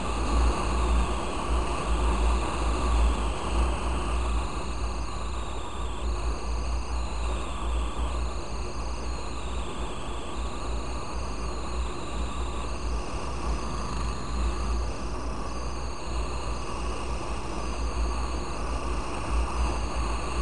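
Yamaha Fazer 250 motorcycle on the move: a steady engine drone under a heavy low rumble of wind on the microphone.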